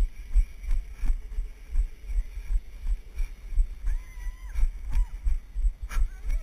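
Dull, regular thumps of the camera wearer's footfalls jolting a body-mounted action camera, about two to three a second, as they move along a dirt trail.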